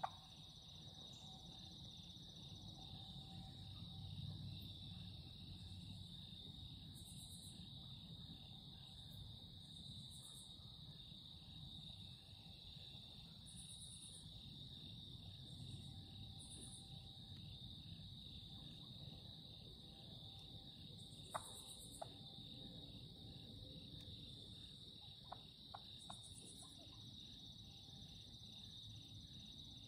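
Faint outdoor ambience: a steady, high-pitched, evenly pulsing trill throughout, over a low rumbling haze, with a few short sharp clicks in the second half.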